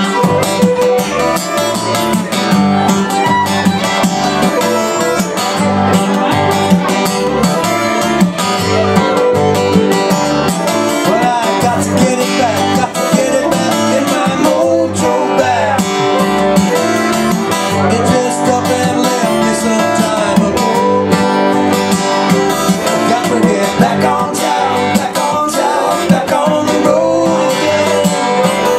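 A small acoustic band playing a country-style song live: strummed acoustic guitars with a bowed fiddle over a steady beat.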